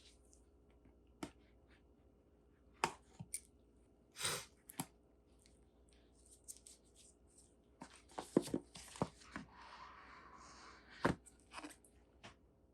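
Handling of a smartphone box and its packaging: scattered taps and clicks, a short rustle about four seconds in, and a longer rustling, sliding sound about ten seconds in.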